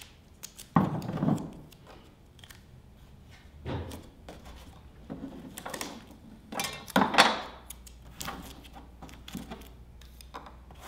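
Tape pulled off a roll, then craft supplies picked up and put down on a tabletop: a handful of scattered thunks and rustles, the loudest about seven seconds in.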